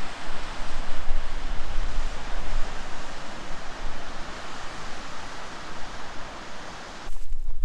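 Waterfall: a steady rush of falling water. About seven seconds in it cuts off abruptly to a low rumble and a few clicks.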